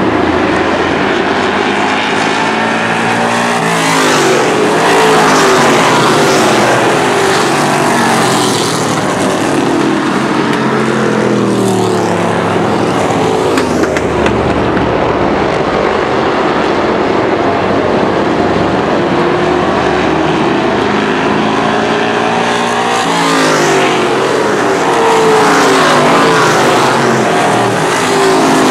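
Street stock race cars' engines passing at speed in packs, each one rising then falling in pitch as it goes by. The loudest waves come about four seconds in and again near the end.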